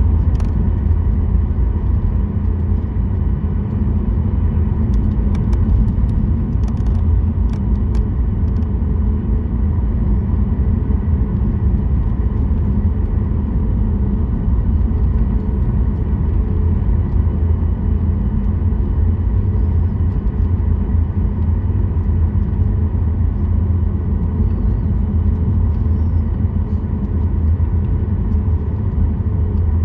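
Cabin noise of a Boeing 737 MAX 8 with its CFM LEAP-1B engines running: a steady low rumble with a faint even whine, and a few light clicks about five to eight seconds in.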